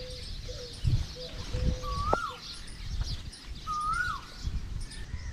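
Birds calling: a clear whistled call that rises and then falls, repeated about every two seconds, and a string of short, even low notes, over dense high twittering from many small birds. Uneven low rumbling noise runs underneath.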